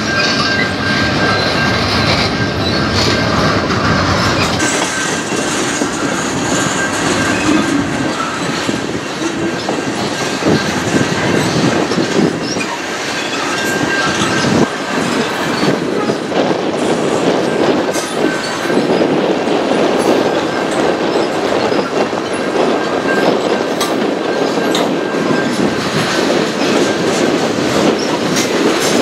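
Freight train cars rolling past, steel wheels clacking over the rail joints, with a thin steady wheel squeal that dies away near the end.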